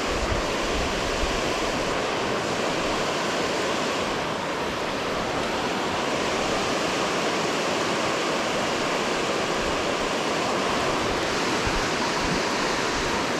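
Steady, even rush of water pouring through a dam spillway.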